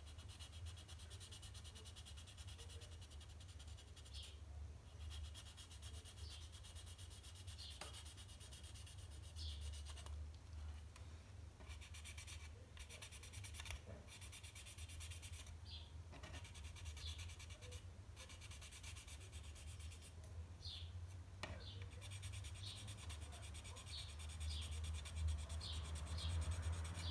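Sanding stick rubbing over a 1:24 plastic model car body shell in long runs of fine strokes with short pauses, sanding out seam lines. A low steady hum runs underneath.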